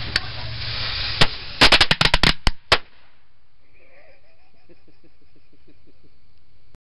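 A string of firecrackers going off: a steady hiss with a single crack, then another, then a rapid crackle of about eight bangs in just over a second.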